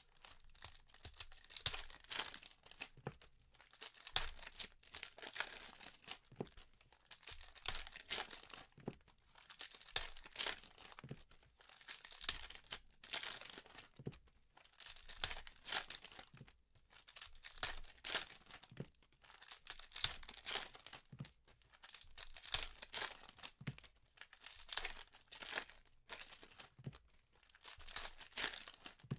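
Foil wrappers of 2015 Panini Prizm football hobby packs being torn open and crinkled by hand, one pack after another, in a quick irregular run of tearing and rustling.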